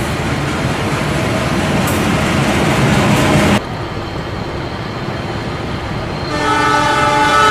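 Rumble and hiss of a train running through a station, building for about three and a half seconds and then dropping abruptly to a lower rumble. About six seconds in, a steady sound with several pitches held together starts and carries on.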